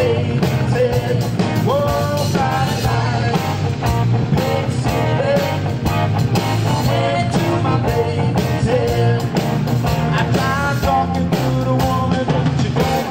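Live blues band playing: a man singing over a semi-hollow electric guitar, with drums keeping a steady beat.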